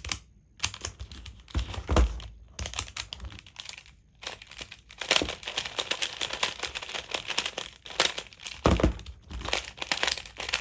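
Plastic clicking and clacking of a 3x3 Rubik's Cube sliding puzzle being turned and its tiles slid quickly by hand, a few knocks early on, then a dense run of rapid small clicks from about halfway through.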